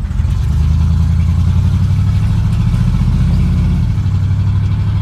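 Squarebody pickup truck's engine pulling away and running under load, heard from inside the cab as a loud, low, pulsing engine note that steps down slightly about four seconds in. The engine is smoking.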